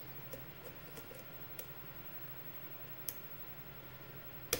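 Lock pick and tension tool working the pins of a pin-tumbler lock: faint, scattered small clicks as the threaded and serrated security pins bind and set, with one sharper click near the end as a pin sets.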